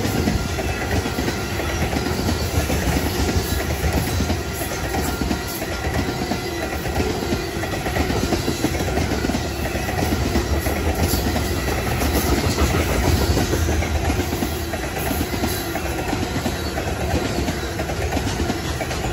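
Steel wheels of a long freight train's tank cars rolling past, a steady rumble with clicking as the wheels cross rail joints.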